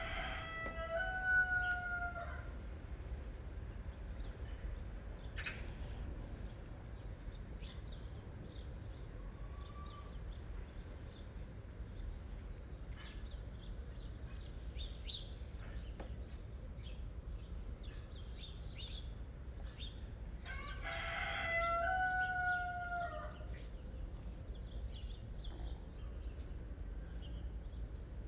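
A rooster crowing twice, about twenty seconds apart, each crow about two seconds long.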